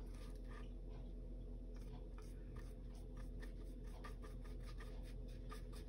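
Small flat paintbrush stroking acrylic paint onto a canvas panel: faint, irregular scratchy brush strokes over a steady low hum.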